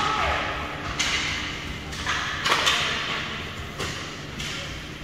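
Hockey game play echoing in an indoor rink: irregular sharp knocks of sticks and puck, some trailing into a short hiss, over the rink's steady rumble.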